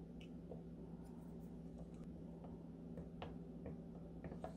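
Faint, scattered light clicks and taps from small clay tools working polymer clay on a tile, over a steady low hum.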